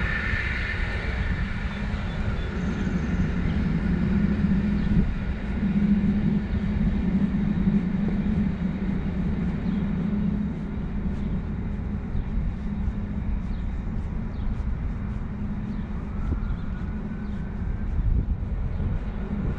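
Steady low rumble of distant vehicle traffic, with a low hum that swells from about four to ten seconds in and then eases.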